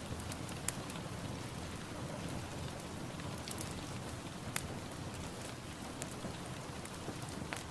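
Steady rain falling, an even hiss with scattered sharp drips ticking on a surface.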